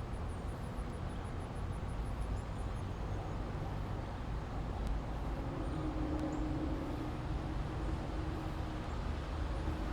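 Steady low rumble of road traffic, with a faint hum coming in about halfway through.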